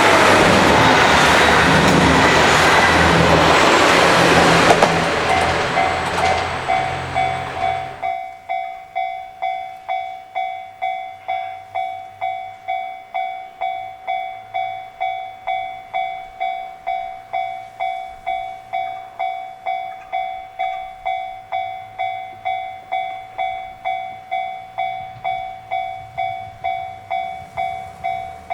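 A train runs through a Japanese level crossing, its rumble loud at first and dying away over the first eight seconds or so. Under it and then alone, the crossing's warning bell rings on in steady dings, about one and a half a second.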